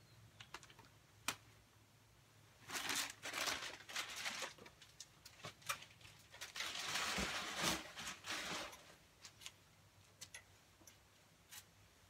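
Hand handling of parts on a generator that is not running, likely a cover being fitted back: scattered light clicks and knocks, with two stretches of rustling and scraping, about three and seven seconds in.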